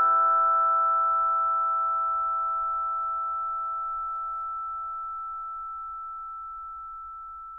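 The last chord of the background music, a bell-like mallet-struck chord, ringing on as a few steady pure tones and slowly fading away.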